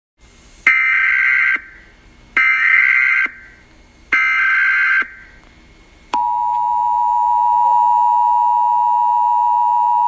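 Emergency Alert System SAME header: three bursts of warbling digital data tones, each about a second long, coding a civil authorities' administrative message. About six seconds in, the steady two-tone EAS attention signal starts.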